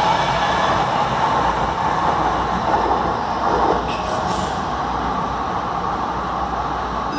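MUNI Metro light-rail train pulling out of an underground station, its steady rumble of wheels and motors slowly fading as it runs off into the tunnel. A brief sharp high sound comes about four seconds in.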